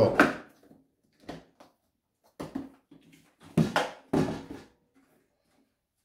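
A handful of short, sharp plastic knocks and clicks, spread over a few seconds, as the Parkside PWD 30 B1 wet and dry vacuum's motor head, with its cartridge filter locked on, is handled and stood upright on a table.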